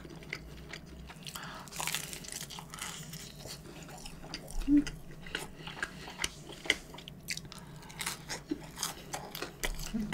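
Close-miked chewing of a mouthful of thick-crusted Chicago-style pizza: wet smacking and clicking mouth sounds with some crunch of the crust, the loudest bite about four and a half seconds in.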